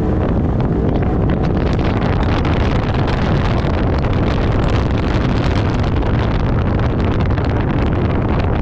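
A 2020 Polaris RZR XP 4 side-by-side running under way, mixed with heavy wind buffeting on the microphone, loud and steady throughout.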